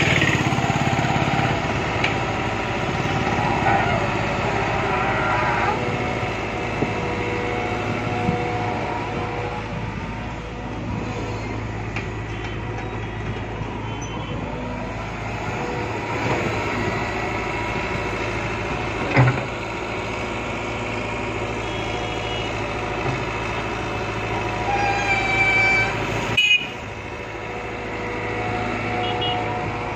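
Crawler excavator's diesel engine running steadily under working load while it digs and swings loads of sand. There is one sharp knock past the middle and a few short high-pitched squeals near the end.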